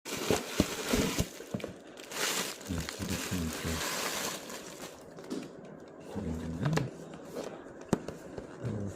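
A power bank's retail packaging being handled: plastic wrap crinkling, with several sharp clicks and taps of the box near the start and one more near the end.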